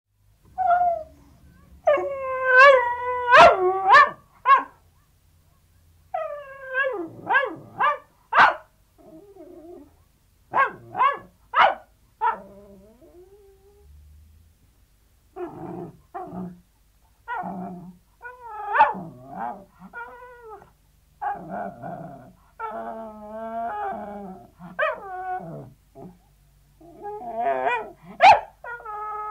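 Sealyham terrier yelping: a run of short, sharp yelps mixed with longer cries that waver in pitch, coming in bursts with brief pauses between them.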